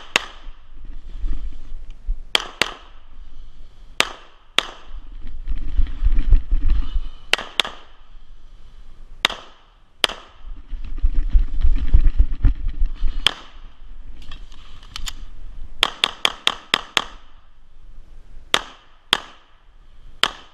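A 9mm CZ SP-01 Tactical pistol firing, mostly in quick pairs, about twenty shots in all, with a fast run of about six shots a little past two-thirds through. A low rumble of movement is heard between some of the strings.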